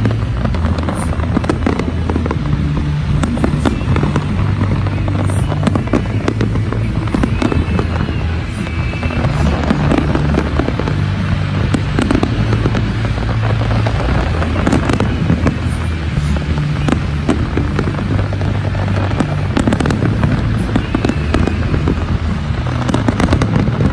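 Aerial fireworks bursting and crackling continuously in a dense barrage, with music and its bass line playing underneath.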